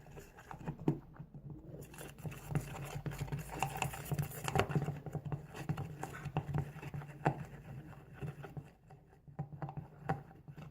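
Stirring white PVA glue with green colouring in a bowl for slime: a stirring utensil scraping and tapping against the bowl in irregular clicks and scrapes.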